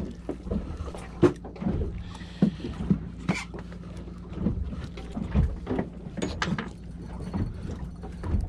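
Irregular knocks and clunks of handling gear aboard a small fishing boat, over a steady low hum.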